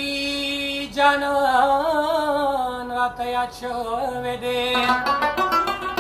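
A man sings a Pashto ghazal in long held notes that waver and bend in pitch. About five seconds in, the voice stops and the rabab comes in with quick plucked notes.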